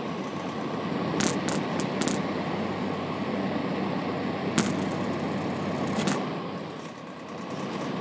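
Holmes fan heater's fan motor running on high heat, heard close up at its grille: a steady rush of air with a faint hum. A few sharp clicks come in the first few seconds and again around the middle.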